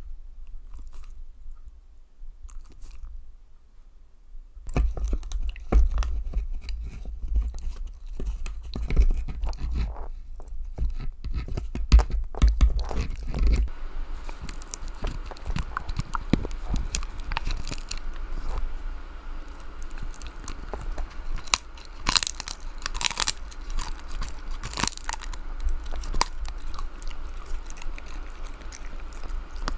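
A small dog biting and crunching on hard dried chews held close to a microphone. It first works on a dried pig's ear, with dense crunching from about five seconds in. About halfway through it changes to a smaller dried treat, and the chewing goes on with loud crunches.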